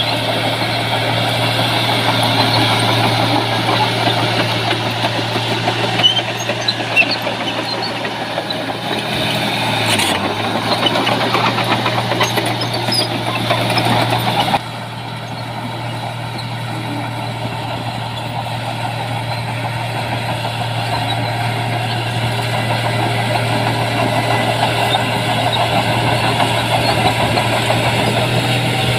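Heavy diesel engine of earthmoving machinery running steadily with a low hum, with a few short clanks. About halfway through the sound drops suddenly to a quieter level and carries on steadily.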